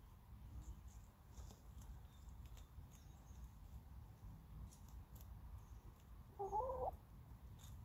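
A Light Sussex hen gives one short, wavering call about six and a half seconds in, over faint scuffling of soil and leaves as she dust-bathes.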